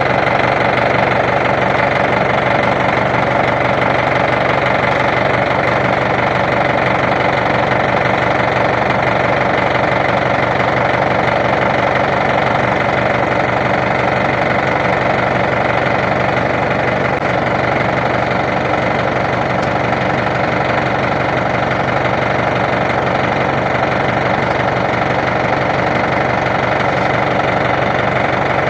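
Engine running steadily at an even speed, without revving up or down.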